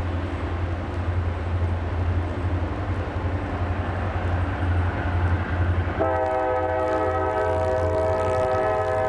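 Approaching diesel locomotive, a steady low rumble; about six seconds in its air horn starts a long, steady multi-tone blast that holds on.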